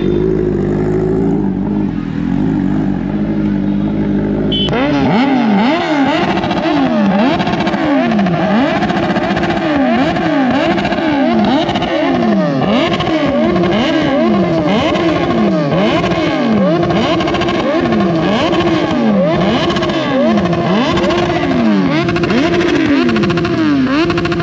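Kawasaki Z900's inline-four through a full-system aftermarket exhaust, running at a steady note and then, about five seconds in, revved in quick throttle blips about once a second, the pitch swinging up and down each time.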